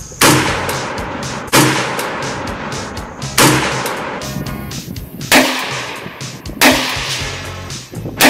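Semi-automatic single shots from an AMD-65 AK-pattern rifle: six sharp reports, one every second and a half to two seconds, each ringing out briefly. Background music with a steady beat runs under them.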